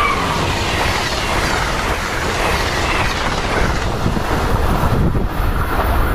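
Amtrak electric passenger train of stainless-steel Amfleet coaches rushing past at speed on the near track. The high hiss of the passing cars dies away about five seconds in, leaving a low rumble.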